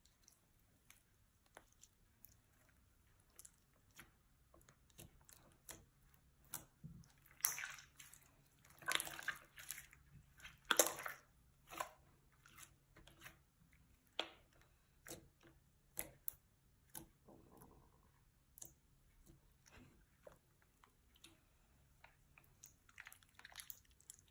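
Slime being squished and mixed by hand, making sticky wet clicks and pops, with a few louder squelches about eight to eleven seconds in.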